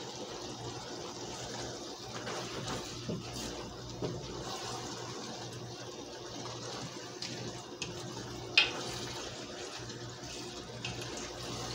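Slotted spatula stirring cabbage and beef stew in a pot on a gas stove: soft scraping and light clicks, with one sharp tap against the pot about eight and a half seconds in, over a steady hiss and a low hum.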